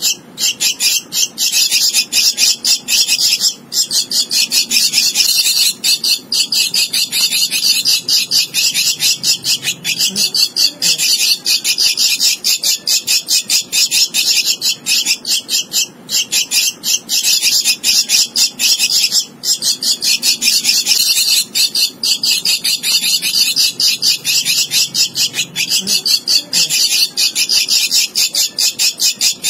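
Javan myna chick giving begging calls for food: a fast, nonstop run of shrill, rasping notes, several a second, broken only by a few short pauses.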